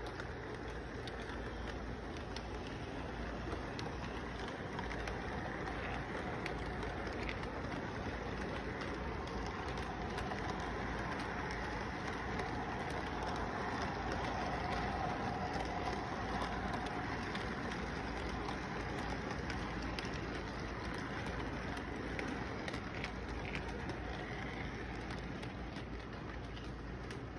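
Model intermodal train running on its track: a steady rolling rattle of wheels and motor that grows louder as the train passes close by in the middle and then fades a little.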